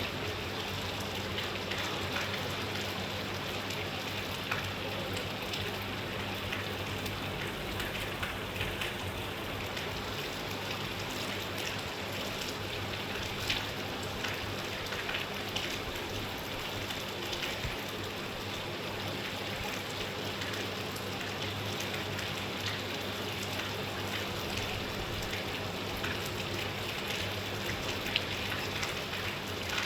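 Steady rain falling, with scattered louder drops hitting a surface.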